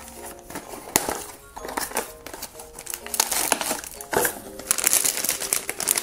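Cardboard blind box being opened, with sharp clicks and rustling, then a shiny plastic foil bag pulled out and crinkled noisily as it is torn open during the second half. Soft background music plays underneath.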